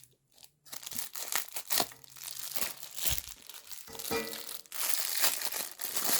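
Thin plastic packaging of a mochi squishy toy crinkling and being torn open by hand, in irregular crackles that grow dense near the end.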